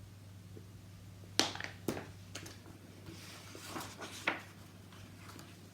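Quiet handling of a picture book as its page is turned: a few sharp taps and clicks, about one and a half seconds in, again half a second later and once more near four seconds, with soft paper rustling between, over a steady low electrical hum.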